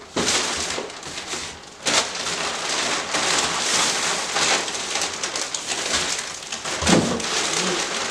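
Plastic shipping bags rustling and crinkling as packages are pulled out and handled, with a couple of sharper crackles or knocks about two seconds in and near the end.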